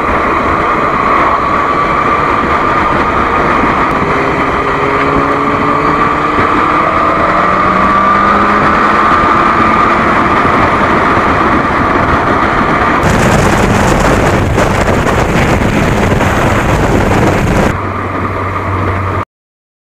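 Motorcycle riding at road speed, heard mostly as heavy wind rush over the microphone with the engine's note underneath, its pitch rising as the bike speeds up. The wind noise turns harsher for a few seconds later on, then the sound cuts off abruptly near the end.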